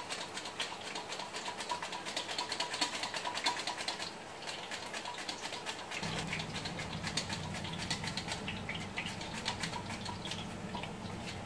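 Raw banana slices sizzling and crackling as they fry in hot oil in a steel kadhai, with more slices being cut straight into the oil from a hand slicer. A low hum joins about six seconds in.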